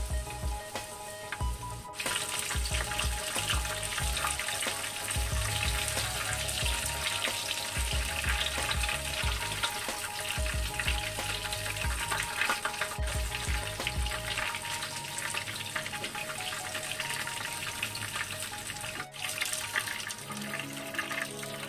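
Shrimp wontons sizzling steadily in hot oil in a nonstick frying pan as they crisp.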